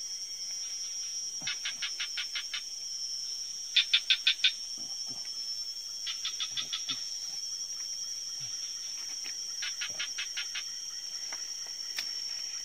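Forest animal sounds: a steady high-pitched insect drone, with rapid chirping in short trains of about eight pulses that recur every two to three seconds.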